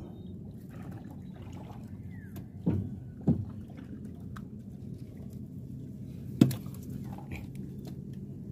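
A small boat's engine running steadily, with three dull thumps of fish on the boat's wooden floor slats as they are unhooked from the longline. The loudest thump comes in the second half.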